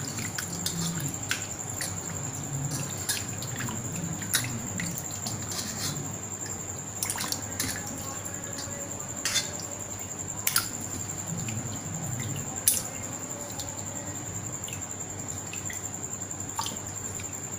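Water sloshing and dripping in a stainless steel bowl as a hand swishes and rubs raw liver pieces to wash them, with scattered sharp plinks and drips. A faint steady high-pitched whine runs underneath.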